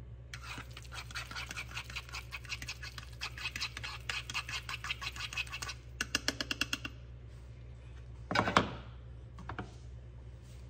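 A fork beating an egg mixture in a silicone bowl: quick scratchy clicks, about ten a second, then a faster, louder run of strokes about six seconds in. A single louder knock-like sound comes about eight and a half seconds in.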